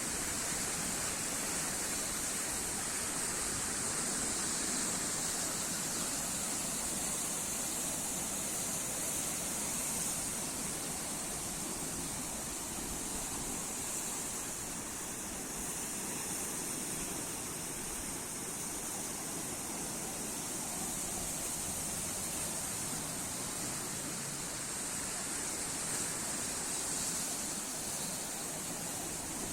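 Sea waves and surf making a steady rushing hiss that barely rises or falls, with no separate breakers standing out.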